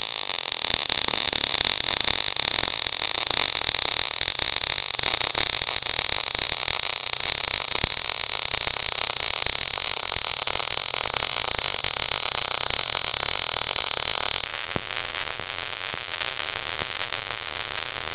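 MIG welding arc burning continuously, a steady crackling hiss, with the welder set too cold: too low a wire speed. The crackle changes in tone about three-quarters of the way through.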